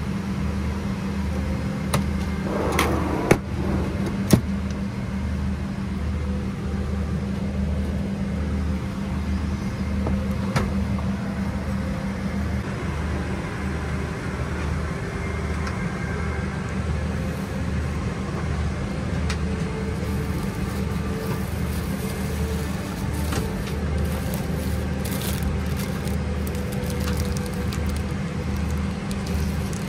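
Steady drone of a Boeing 777-300ER airliner cabin, with a low throb pulsing a little over once a second underneath. A few sharp clicks come about three to four seconds in.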